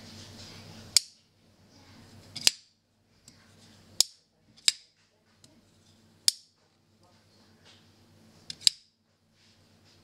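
Button-release automatic folding knife with a titanium frame, its spring-fired damascus blade snapping open and being clicked shut again and again: about six sharp, short metallic clicks a second or two apart, two of them doubled.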